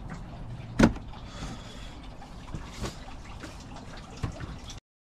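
Handling noise as a Pod Point Solo 3 EV charger's plastic housing is lifted out of its cardboard box: a sharp knock about a second in, lighter knocks and cardboard scraping after, over a steady low background noise. The sound cuts off suddenly near the end.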